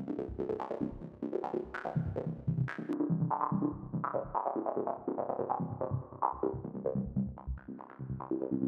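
A liquid-style synth patch in Xfer Serum playing a rhythmic, stepped electronic pattern while its EQ is being adjusted. About three seconds in the top end turns duller as the high band comes down.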